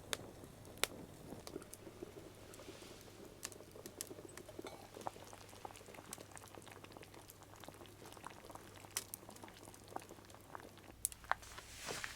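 Wood cooking fire crackling, with irregular sharp pops over a low hiss, and a short hiss just before the end.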